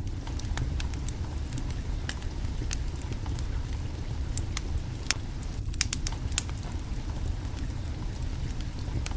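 Wood fire crackling under a cooking pot: scattered sharp pops and snaps, a few louder ones around the middle, over a steady low rumble.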